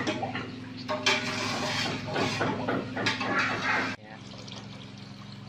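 A metal ladle clinks and scrapes in an aluminium stockpot while water is poured into the pot from a plastic jug, over a steady low hum. The clatter and splashing stop abruptly about four seconds in.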